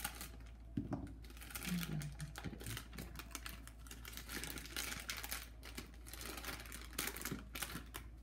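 Clear plastic bag of dry baking mix crinkling and rustling as it is cut with scissors near the start and then handled and pulled open, an irregular run of quick crackles.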